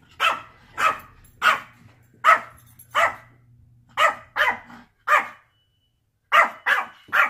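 Coonhound barking in a run of short, loud barks, about one or two a second, pausing briefly about five seconds in before three more quick barks. It is alert barking at someone arriving outside.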